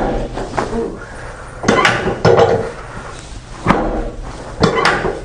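Chiropractic adjustment: a series of sharp pops and thumps from the adjusting thrusts, several of them in quick pairs.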